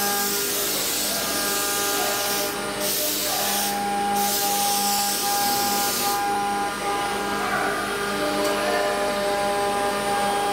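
CNC router's 9 kW spindle running with a steady whine while its bit cuts a curved surface into a wooden block. A loud hiss of cutting drops out briefly twice and stops about six seconds in, leaving the spindle whine.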